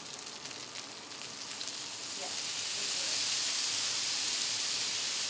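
Chicken wings sizzling on a hot flat-top griddle. About two seconds in, the sizzle swells into a loud steady hiss as Worcestershire sauce is poured over them and steams off the hot surface.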